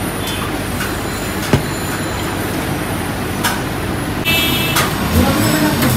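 Busy restaurant din: a steady bed of noise with a few sharp clinks of dishes, the loudest about a second and a half in. A brief high-pitched tone sounds just after four seconds, and background voices come up near the end.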